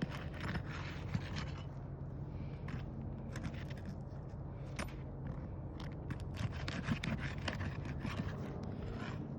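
Irregular scraping and rasping against asphalt roof shingles, with sharp clicks mixed in and the strokes coming thicker toward the end.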